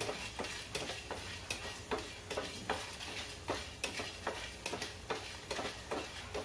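Wooden spatula stirring chana dal and dried red chillies as they dry-roast in a stainless steel pan, a light regular scrape-and-tap about two and a half times a second.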